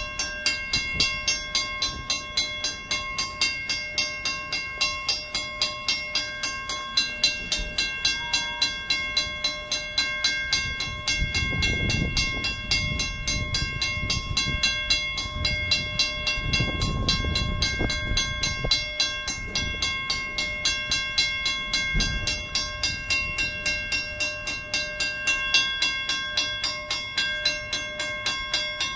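WCH mechanical crossing-signal bell ringing steadily, struck at an even rhythm with a ringing metallic tone. Low rumbles swell twice in the middle, and there is a single low thump about three quarters of the way through.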